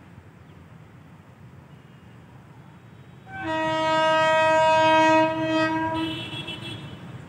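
Horn of an approaching WAP 7 electric locomotive: one loud blast of about two seconds starting near the middle, then a fainter, higher tone that trails off. A steady low rumble lies underneath.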